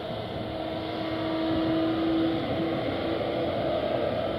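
Boeing 777 airliner's twin jet engines at low taxi power: a steady whooshing noise with a low hum that grows a little stronger about a second in and fades again after the middle.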